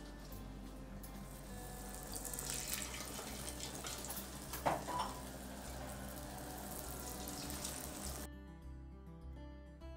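Urad-dal bonda batter sizzling as it deep-fries in hot oil, with a sharp crackle near the middle. Soft background music runs underneath; about eight seconds in the sizzle cuts off and only the music remains.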